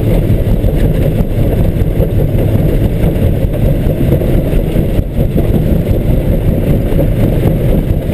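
ZAZ Tavria's engine running steadily under load, heard from inside the cabin, as the car on wheel chain straps fails to get up a muddy slope from a standstill.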